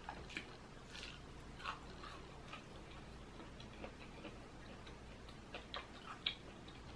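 Faint, soft chewing of a hot Cheeto-crusted fried pickle: small wet mouth clicks and smacks scattered throughout, a few slightly louder near the end. The coating has little crunch.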